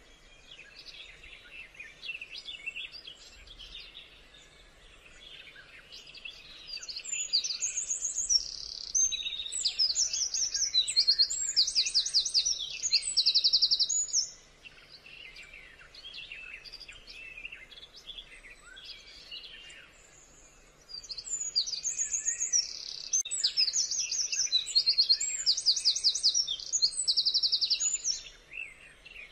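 Birds calling: a soft chatter of chirps, broken twice by loud bouts of rapid, repeated high trills, the first about a quarter of the way in and the second about two-thirds of the way in.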